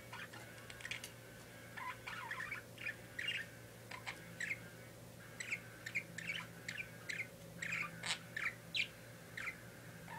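Pet parakeet chirping: an irregular string of short, sharp chirps and chatter, coming thicker in the second half, over a faint steady hum.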